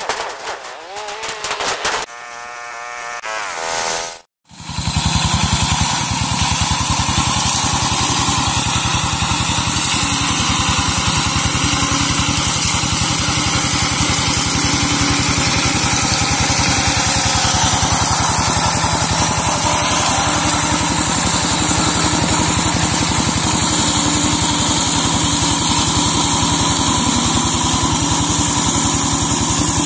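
A different, wavering sound cuts off sharply about four seconds in. After that, the engine of a homemade walk-behind slasher mower runs steadily and loudly as the machine clears undergrowth.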